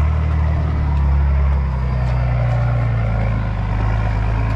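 Diesel four-wheel-drive engine working steadily at low revs as the vehicle crawls up a rocky track.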